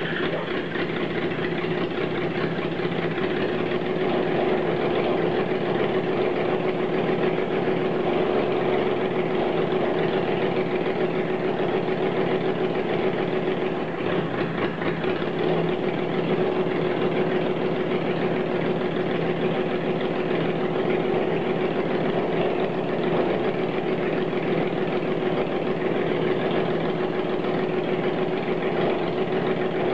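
Freshly rebuilt engine running steadily at idle on its first start after the rebuild, a cold start with a bit of choke.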